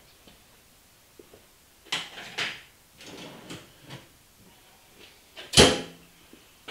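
Scattered knocks and rattles of hard parts being handled at a turret lathe, then one loud clunk about five and a half seconds in.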